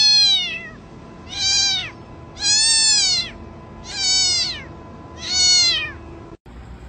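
Domestic cat meowing five times in a row, each call rising and then falling in pitch, about one every second and a half.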